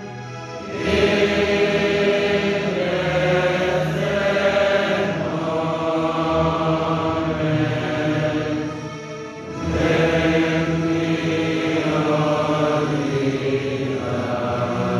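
A large group of student voices chanting a slow sung prayer together in unison, in long held phrases. The singing dips briefly for breath just before a second in and again around nine seconds in.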